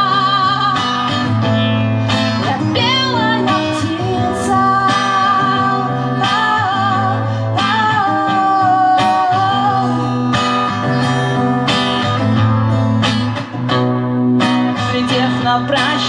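Woman singing long, wavering held notes to her own strummed acoustic guitar.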